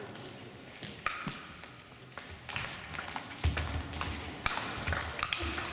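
Table tennis ball clicking sharply against the bats and table in a fast rally, with a few low thuds in the second half.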